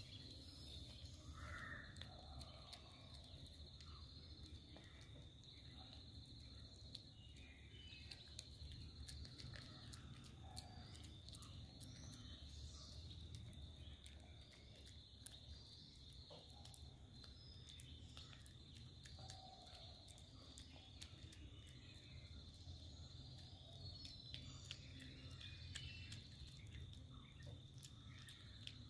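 Near silence: faint outdoor ambience with a steady high-pitched insect drone, scattered bird chirps and small faint clicks.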